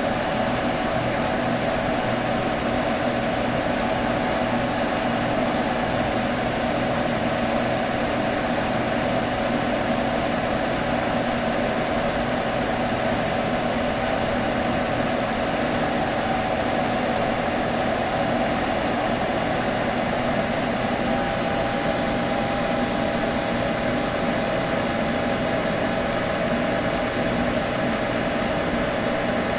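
Computer humming steadily: fan noise with a constant hum. A slightly higher tone joins about two-thirds of the way through.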